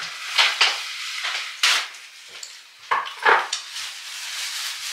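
Kitchen clatter of dishes and utensils: a few short, sharp clatters and scrapes, the loudest about half a second, a second and a half and three seconds in, then a steady hiss toward the end.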